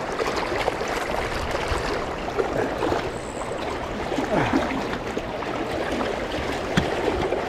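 Fast riffle water of a trout river rushing steadily.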